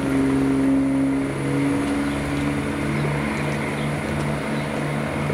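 Class 170 Turbostar diesel multiple unit's underfloor diesel engines running under power, the engine note stepping up in pitch about a second in and then holding steady as the train gets moving.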